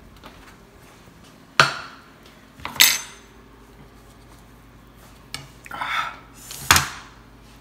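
Chef's knife and ceramic plate clinking as a cooked potato is cut open on the plate: a handful of sharp knocks of metal on china, with a short scrape of the blade about six seconds in.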